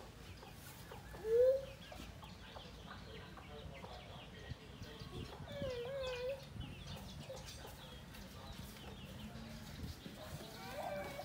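Chickens calling in a farmyard: a short rising call about a second in and a wavering call near the middle, over many faint high chirps.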